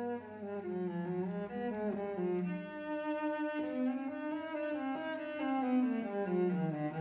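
Background film music: a slow melody of long, sustained notes on low bowed strings, led by cello.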